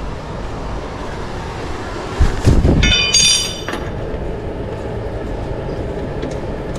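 Steady background noise of shop work, with a couple of heavy clunks followed by a brief high-pitched metallic squeal about three seconds in, then a few light clicks.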